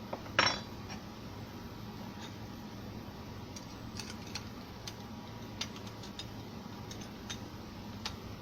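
A sharp clink about half a second in, then scattered light clicks, like small hard objects being handled, over a faint steady hum.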